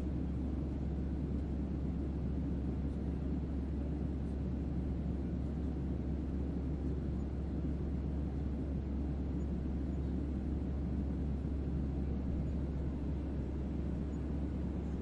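Airliner cabin ambience: the steady low drone and rumble of a passenger jet in flight, heard from inside the cabin.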